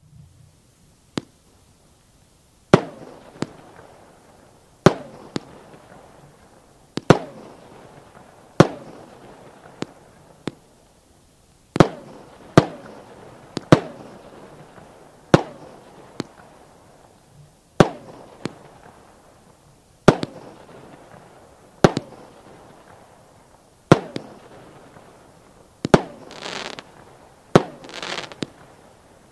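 A 16-shot firework battery (cake) firing its shots one after another, about every two seconds: each shot comes as a pair of sharp bangs with an echoing tail. In the last few seconds the bangs are followed by a hissing crackle.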